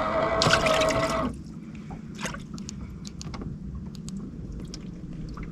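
Water lapping and trickling against a small fishing boat's hull, with scattered light clicks. A steady hum and a burst of hiss cut off a little over a second in.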